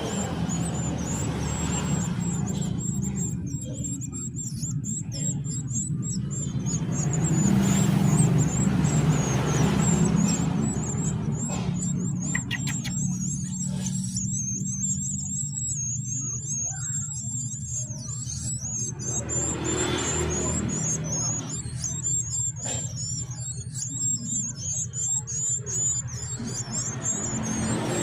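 Golden-bellied gerygone (remetuk laut) nestlings begging while being hand-fed: a continuous stream of very high, thin, wavering chirps, over a steady low hum.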